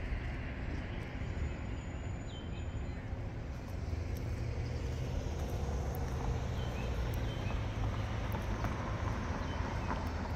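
City street ambience: a steady low rumble of road traffic, with a few faint, short high chirps now and then.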